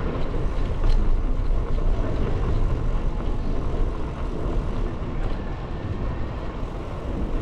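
Wind buffeting the microphone of a camera carried on a moving bicycle: a steady low rumble, with a couple of faint clicks.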